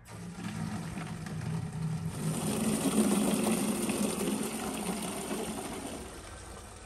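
Water from a garden hose jetting into a plastic watering can, a steady rush with a low hum that swells about three seconds in and fades near the end.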